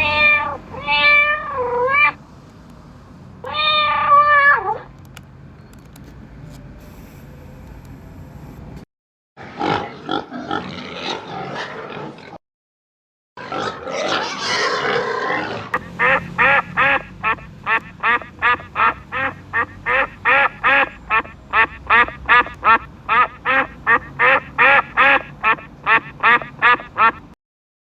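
A sequence of recorded farm animal sounds. It opens with a few short calls that bend in pitch and has two noisy stretches in the middle. The longest part, near the end, is a duck quacking over and over, about two quacks a second.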